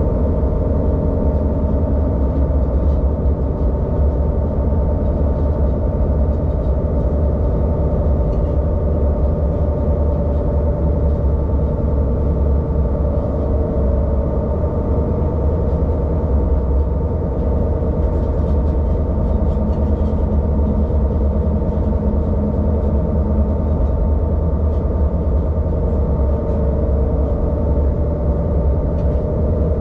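ÖBB diesel railcar running, heard from the driver's cab: a steady engine drone with several held tones over a low rumble.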